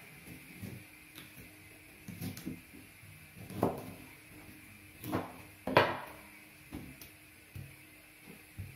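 A knife cutting through cauliflower stems on a plastic cutting board: a string of short knocks and crunches as the blade goes through and hits the board, the loudest about six seconds in.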